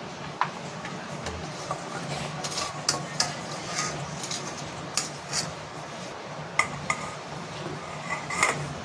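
Metal utensil clinking and scraping against a cooking pan as the food is stirred: irregular sharp clinks, some ringing briefly, over a steady low hum.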